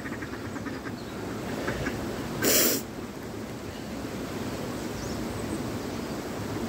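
Steady outdoor hiss by a river, with one short, sharp burst of breathy noise about two and a half seconds in.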